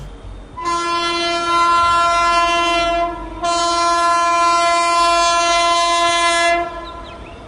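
Horn of an approaching WAG9 electric locomotive sounding two long blasts at one steady pitch, each about two and a half to three seconds, with a short break between. After the second blast only the train's quieter running noise is left.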